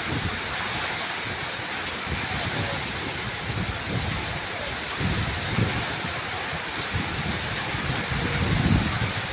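Heavy typhoon rain pouring steadily, with gusts of wind rumbling on the microphone, strongest about five seconds in and near the end.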